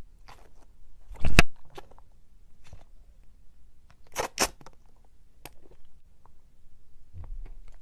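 Slime being squeezed and poked by hand, giving scattered short, sharp sticky clicks and pops. The loudest comes about a second in, and a close pair follows about four seconds in.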